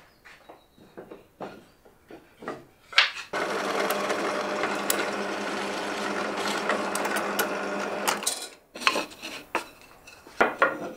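Light knocks of wooden pieces being handled on a workbench, then a benchtop drill press runs steadily for about five seconds, drilling into wooden boards, followed by more short knocks as the boards are moved.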